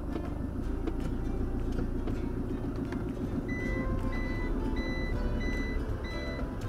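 Motorhome engine running as the van moves off slowly. About halfway through, a high electronic warning beep starts, repeating evenly about every 0.6 seconds.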